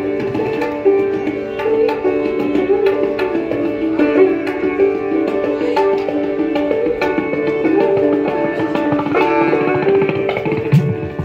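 Sitar and tabla playing Hindustani classical music together: a plucked sitar melody ringing over its sympathetic strings, with tabla strokes underneath. Deep tabla bass strokes come in more strongly near the end.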